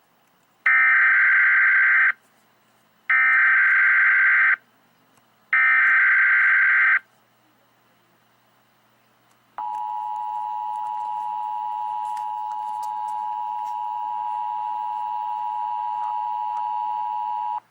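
Emergency Alert System tornado-warning header: three screeching digital data bursts about a second apart, then, after a pause, the steady two-tone attention signal held for about eight seconds before cutting off.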